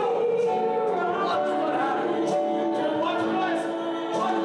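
Hymn singing by a group of voices over sustained instrumental accompaniment, with long held notes.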